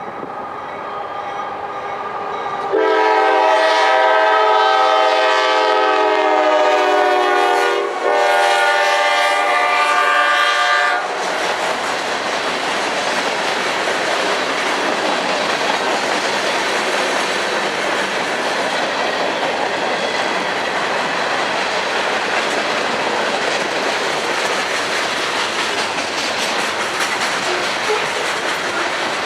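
A train approaches and its locomotive air horn sounds a chord of several notes in two long blasts, broken briefly in the middle. After that the train passes with a steady rumble and clatter of wheels on rail.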